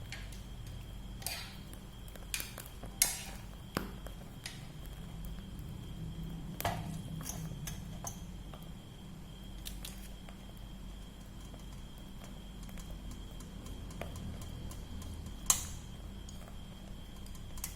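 Scattered clinks and knocks of kitchen utensils against kitchenware, a sharp one about three seconds in and the loudest near the end, over a steady low hum.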